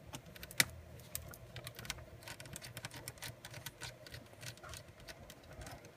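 Irregular small clicks and ticks of a small Phillips screwdriver working the screws out of a laptop's LCD screen, with one sharper click about half a second in.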